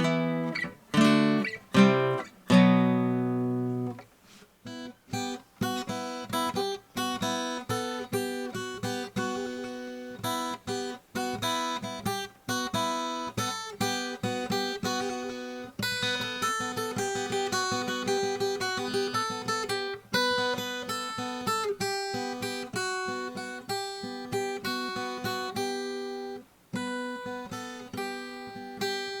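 Acoustic guitar with fairly old strings being played: a few loud strummed chords, then a long run of quick picked notes. It is heard through a Realistic 33-1062 battery-powered shotgun condenser mic aimed behind the guitar's bridge.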